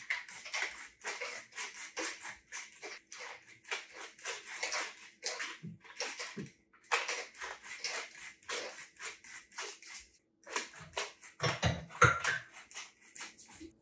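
Hand-twisted pepper mill grinding peppercorns in a quick series of short grinds, about two or three a second, with a couple of brief pauses.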